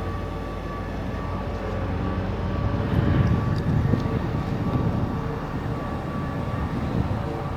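Street traffic: a steady engine hum, with the low rumble of a passing vehicle swelling up about two seconds in and fading after the middle.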